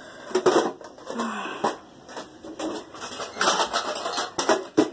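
Handling noise from a phone being moved about: its microphone rustling against a flannel jacket, with irregular knocks and bumps.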